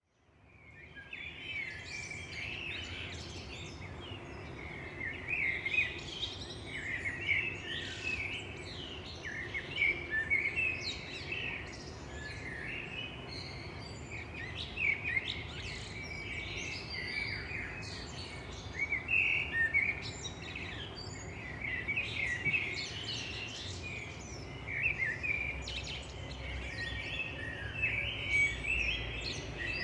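A chorus of songbirds chirping and singing, many short calls overlapping without pause, fading in over the first couple of seconds. A faint low rumble lies underneath.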